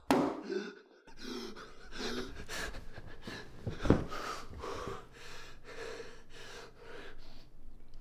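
A man panting and gasping in quick, heavy breaths, about three a second, with a thump about four seconds in.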